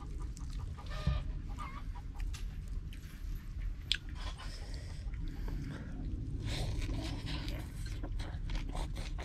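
Chickens clucking, with scattered short clicks, over a low steady rumble.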